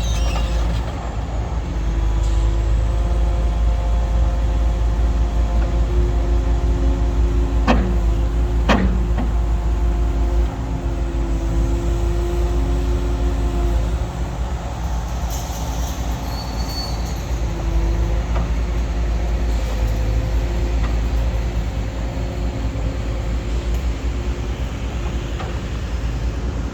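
Hitachi ZX870LCH-3 excavator's diesel engine running steadily, its note shifting as the machine works, with two sharp clanks about eight and nine seconds in.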